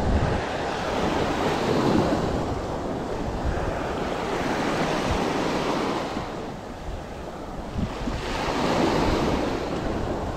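Sea waves breaking and washing up the beach, the rushing noise swelling and easing every few seconds, with wind buffeting the microphone.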